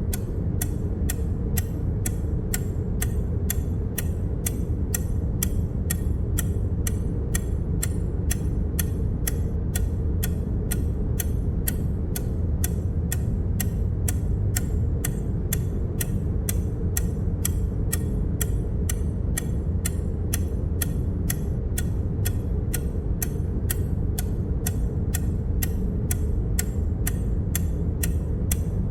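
Short, sharp click sound effect repeating evenly at about two a second, one click for each number counted, over a steady low rumble.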